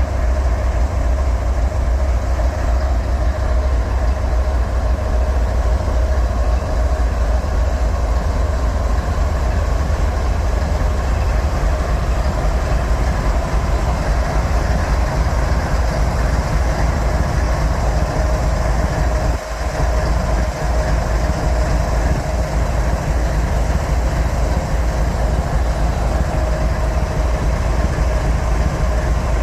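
Train rolling past at close range: a loud, steady rumble of rolling cars with a faint steady whine, unbroken except for a brief dip a little past the middle.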